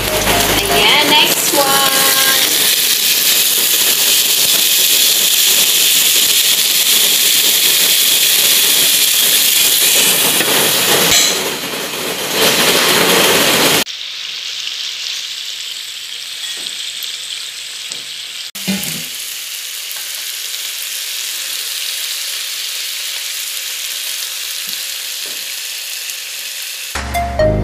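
Pompano frying in a hot Happy Call non-stick grill pan: a steady sizzle that drops abruptly to a quieter, thinner sizzle about halfway through. There is one short knock about two-thirds of the way in.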